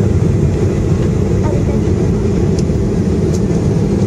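Airliner's jet engines running, heard inside the cabin as a steady low rumble while the plane rolls along the taxiway.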